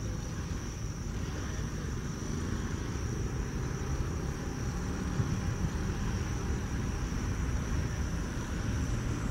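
Airbus A320 jet engines at climb thrust as the airliner climbs out after takeoff: a steady, low, rumbling jet roar.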